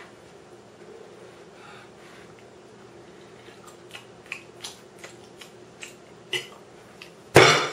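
A fork clicking lightly against a plate during eating, a few faint scattered clinks, with one louder knock near the end.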